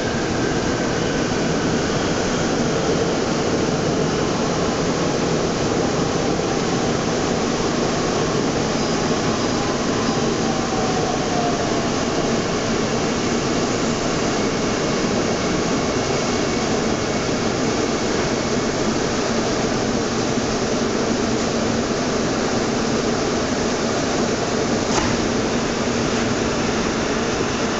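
Steady running noise inside a Bombardier AC09B metro car, a mix of wheel rumble and air-conditioning hiss. A faint falling whine from the traction motors comes as the train slows, and a short click about 25 seconds in comes as the doors open at the station.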